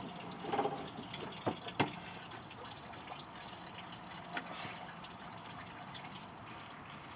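Antifreeze trickling and dripping into a bucket as a truck radiator is pulled out, with a few light knocks in the first two seconds.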